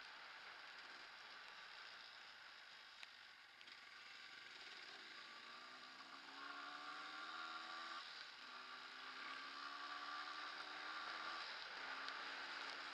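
Yamaha DT230 Lanza's two-stroke single-cylinder engine accelerating, its pitch climbing and dropping twice as it shifts up, growing louder. A steady hiss runs underneath.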